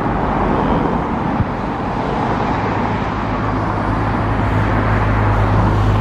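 Road traffic noise, a steady wash of passing vehicles, with a low engine hum building in the second half.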